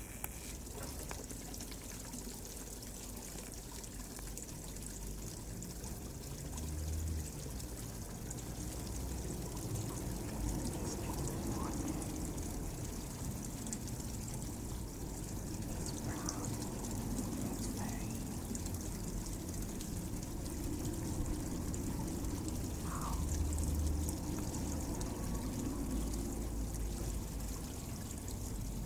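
Garden water fountain pouring a steady stream from its spout into the basin, a continuous trickling splash.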